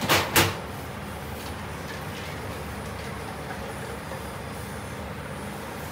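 Two sharp clattering knocks, about a third of a second apart, as utensils are handled at a juice-bar sink, then a steady background rumble.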